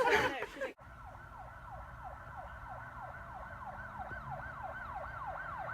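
Emergency-vehicle siren in a fast yelp, its pitch sweeping up and down about three times a second and growing slightly louder. It starts abruptly about a second in, after a brief bit of talk.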